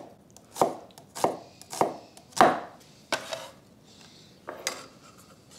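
Chef's knife slicing a red onion into half moons on a wooden butcher-block cutting board: about six knife strokes, roughly two a second. They are followed by a quieter pause and a couple of lighter taps near the end.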